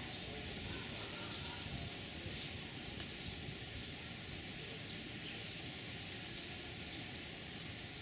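A bird calling over and over in short, high chirps that slide downward, about two a second, over steady outdoor background noise.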